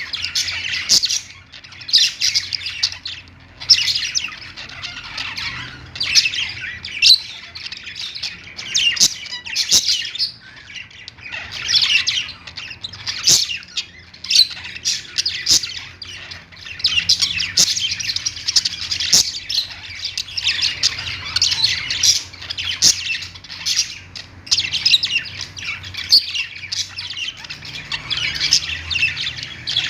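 Several pet budgerigars chattering and warbling together, with rapid high chirps, sharp clicks and squawks coming in bursts every second or two.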